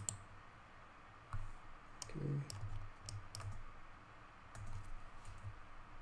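Computer mouse and keyboard clicks: about ten sharp, separate clicks at an uneven pace.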